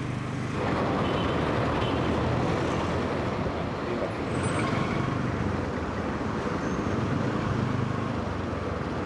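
Road traffic: vehicle engines running with a steady low hum and a continuous noise of traffic, getting louder about half a second in.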